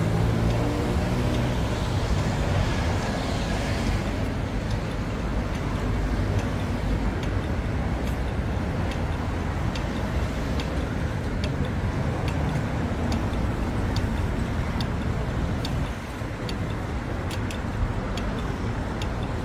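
Road traffic at a city street crossing: cars passing, with one car's engine rising in pitch as it pulls away near the start. From about a third of the way in, a pedestrian crossing signal ticks at an even pace, the ticks coming faster near the end.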